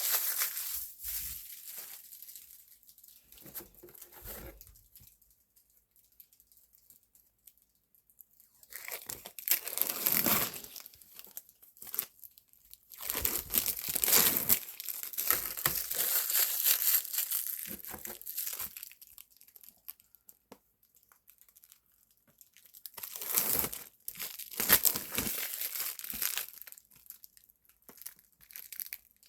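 Protective plastic film being peeled off acrylic panels, crinkling and tearing in several bursts of a few seconds each, with quiet pauses between them.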